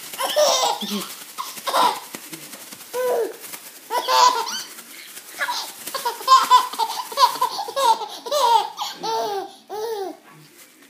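Six-month-old baby laughing in repeated bursts, while a plastic shopping bag rustles and crinkles as it is waved in front of him.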